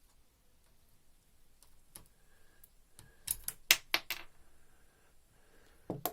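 Quick sharp metallic clicks and taps as a small retaining ring is worked off a partly dismantled Bosch common rail diesel injector. They come in a cluster about three to four seconds in, with another click near the end.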